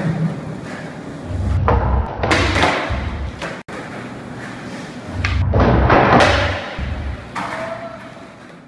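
Skateboard wheels rolling over a rough concrete floor, with thuds of the board hitting the floor. The rolling swells loudly twice, about two and six seconds in, and fades away at the end.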